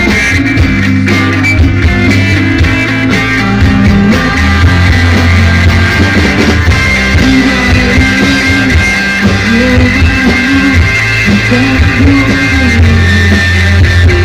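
A live rock band playing loud and steady, with electric guitars, bass and drums.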